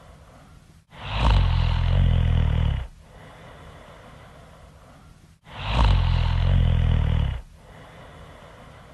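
Person snoring loudly in a regular rhythm: two long, rumbling snores, each about two seconds, with quieter breathing between them.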